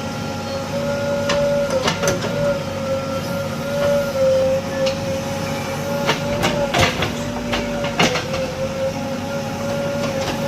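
JCB 3DX backhoe loader's diesel engine running steadily under work with a high, slightly wavering whine. Sharp metallic clanks break in about two seconds in and again in a cluster between six and eight seconds in.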